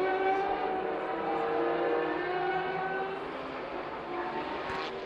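Sports-prototype race car engines running at high revs, several engine notes heard together, their pitch sagging slowly and the sound dipping a little about four seconds in.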